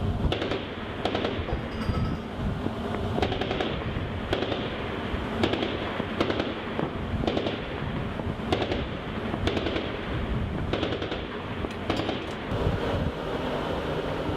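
Gunfire on a ship during a live-fire exercise: a single sharp shot about every second, irregularly spaced, over steady wind and sea noise.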